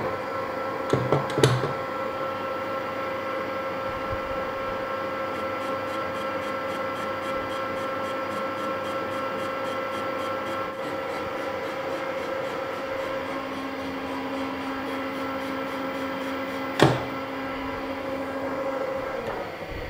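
Metal lathe starting up and running steadily with a constant hum, turning a steel shaft between centres while the tool takes a very light skim off the out-of-round part. A few sharp clicks come about a second in, a faint high ticking about four times a second runs through the middle, and one sharp click comes near the end.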